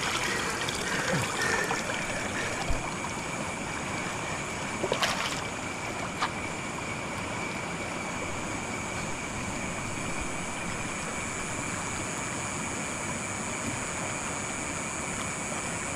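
Shallow stream water running over rocks in a steady rush, with a few splashes from hands moving in the water in the first second and about five seconds in. A thin, steady high tone runs underneath.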